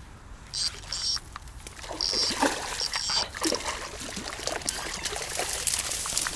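Water splashing and dribbling in short irregular bursts, getting busier after about two seconds.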